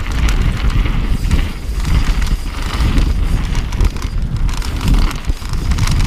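Mountain bike rolling fast down a loose dirt singletrack: tyres crunching on the dirt and the bike rattling over bumps in many short clatters, under heavy wind buffeting on the action camera's microphone.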